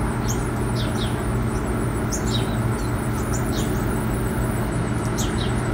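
Outdoor backyard ambience: a steady low mechanical hum throughout, with birds giving short, falling chirps now and then, a little cluster about two seconds in and another near the end.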